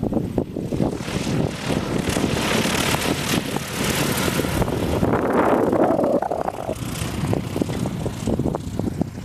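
Single-engine propeller plane flying low past and touching down on the runway, its engine and propeller loudest about five to six seconds in, then fading as it rolls away. Wind buffets the microphone throughout.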